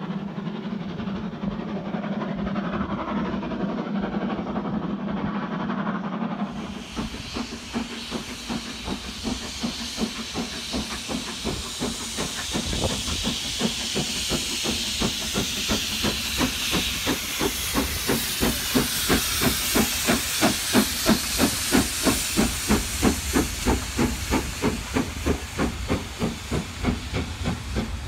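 Steam locomotive working hard as it passes close, its exhaust chuffing in an even beat of about three to four a second over a loud steam hiss, with the coaches rolling by after it. For the first six seconds, before a sudden change, a duller, muffled train sound is heard.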